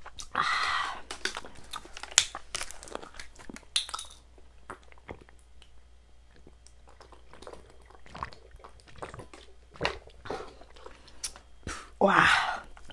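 A person chewing and biting into chicken, with irregular crunches and clicks. There are louder noisy bursts about half a second in and near the end.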